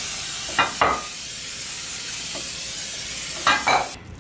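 Aerosol cooking spray hissing steadily as it coats a casserole dish, cutting off sharply near the end. A few short knocks of dishware come through the hiss.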